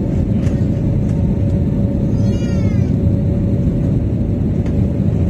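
Steady jet engine rumble heard inside the cabin of an Airbus A320-family airliner moving on the ground, with a steady hum over it. About two seconds in, a short high-pitched sound slides down in pitch for about half a second.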